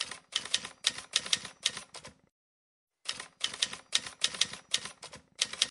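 Typing sound effect: quick keystroke clicks, about three or four a second, in two runs of roughly eight to ten strokes. It goes silent for under a second after about two seconds.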